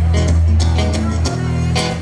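Live band playing an instrumental intro: guitar strumming a steady rhythm over held bass notes.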